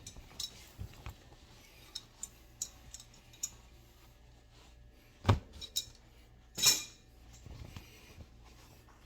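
Metal tools and parts clinking and knocking as they are handled, with a sharp knock about five seconds in and a louder, brief clatter a second later.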